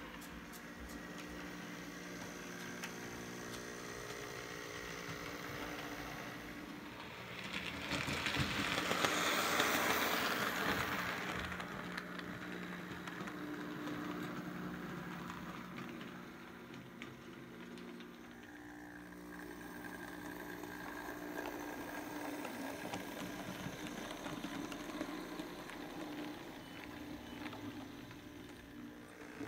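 Model railway train running: a small electric motor hums steadily under the rattle of wheels on the track, swelling louder for a few seconds about a third of the way in as the train passes close.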